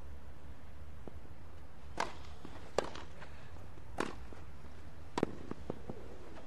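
Tennis rally on a grass court: a string of sharp pops from rackets striking the ball and the ball bouncing. Four louder hits come over about three seconds, followed by a few fainter ones.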